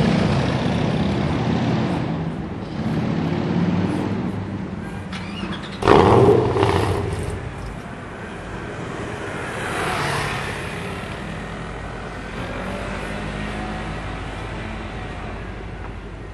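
Ford GT's supercharged 5.4-litre V8 running at idle, with a sudden loud burst about six seconds in and a brief swell around ten seconds, then settling into a steady idle.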